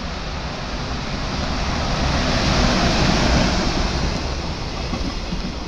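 EH500 electric locomotive hauling a container freight train through a station: a rushing rumble of wheels on rails that swells to its loudest about three seconds in as the locomotive and first container wagons pass close, then eases off.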